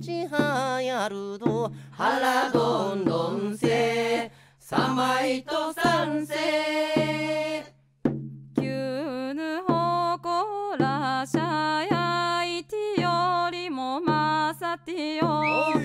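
Recorded Okinawan shimauta (island folk song) playing: singing with a wavering, ornamented voice over instrumental accompaniment. The music drops out briefly about eight seconds in.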